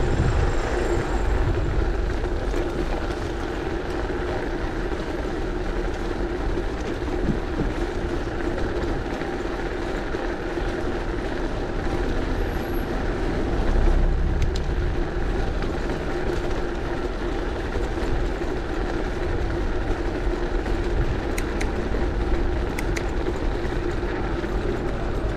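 Mountain bike rolling over cobblestones: a steady rattle and tyre noise from the rough paving.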